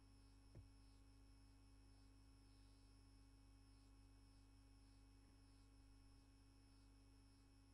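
Near silence: a faint steady electrical hum and high whine from the recording chain, with one faint click about half a second in.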